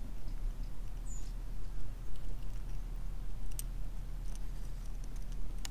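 Fishing rod and reel being handled from a kayak: a few faint, sharp clicks and ticks over a low steady rumble, with a brief high squeak about a second in.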